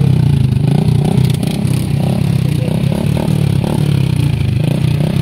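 Small motorcycle engine idling close by, a steady low hum.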